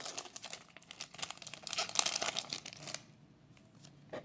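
Foil Yu-Gi-Oh booster pack wrapper being torn open and crinkled, a run of crackling rasps that stops about three seconds in, followed by a single soft click near the end.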